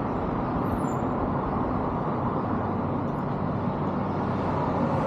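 Steady noise of highway traffic, cars passing continuously.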